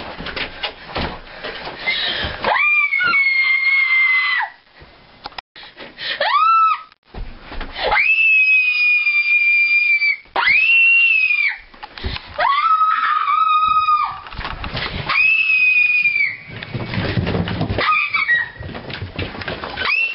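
A person screaming in fright over and over: about six long, high-pitched screams, each held for one to two seconds, with short pauses of scuffling noise between them.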